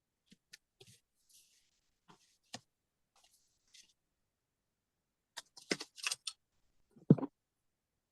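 Cardstock being cut and handled: scattered light clicks and rustles, then a quick run of crisp cutting and paper sounds about five and a half seconds in, followed by a single thump about a second later.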